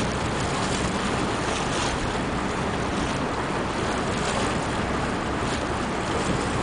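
Steady wind and water noise heard from aboard a water taxi on the harbour, with a low engine hum underneath and wind buffeting the microphone.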